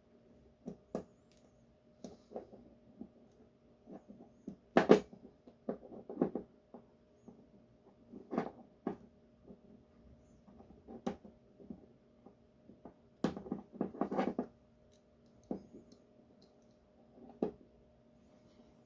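Irregular metallic clicks and short scrapes of a tool prying at the stubborn retaining clip on an Assa 700 lock cylinder while it is being taken apart. The loudest clusters come about five seconds in and again around thirteen to fourteen seconds.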